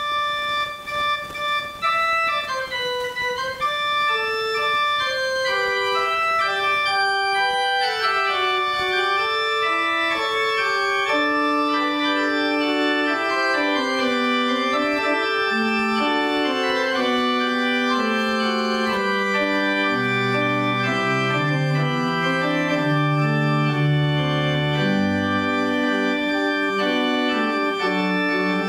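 Pipe organ being played: a single high melody line at first, filling out into several parts, with deep pedal bass notes coming in about two-thirds of the way through.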